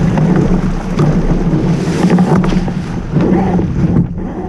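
Wind buffeting the microphone on the deck of a small sailboat under way, over the rush of water along the hull, with a few knocks from the boat. The wind noise eases about four seconds in.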